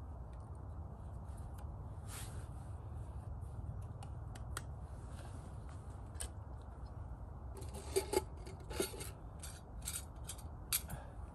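Fire Maple FMS-X2 camping pot set being handled and set up on its stove: light metal clinks, rubbing and scraping, with a cluster of sharper clicks about eight seconds in.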